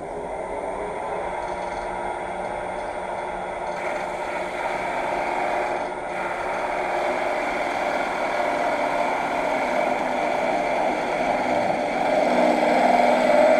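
Wood lathe running while a freshly sharpened turning tool cuts a spinning pine spindle: a steady whir with a continuous shaving scrape. A sharp tool cutting cleanly with no effort.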